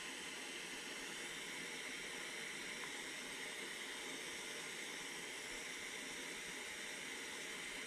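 Butane soldering iron (LEXIVON LX-770) burning on its highest setting: a faint, steady gas hiss as the tip heats a heavy battery cable.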